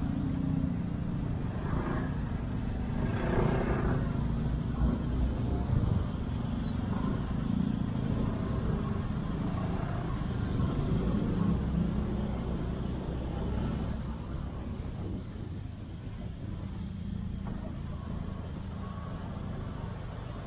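Motorbike and car engines running in slow, congested street traffic, a steady low rumble, with brief voices a few seconds in.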